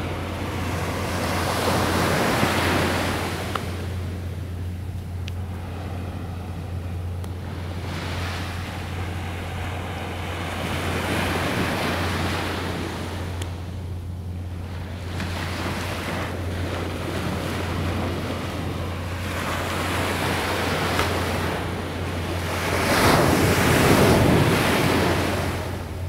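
Surf breaking on a sandy beach, the wash swelling and fading several times and loudest near the end, with wind on the microphone and a steady low hum underneath.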